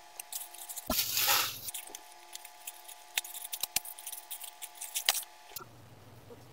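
A plastic mailer bag being handled and opened by hand: crinkling and crackling in quick irregular bursts, loudest in a longer rustle about a second in, then stopping near the end.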